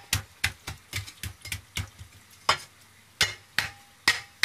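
Chinese cleaver striking a wooden chopping block as ginger is chopped fine. The knocks come about three a second in the first half and are sparser in the second half.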